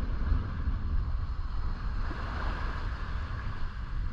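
Wind buffeting the microphone in an uneven low rumble over a steady rush of sea water.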